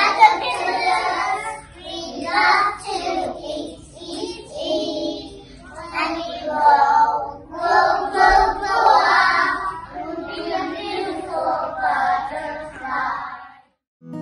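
A group of young children singing a song together in short phrases, breaking off just before the end.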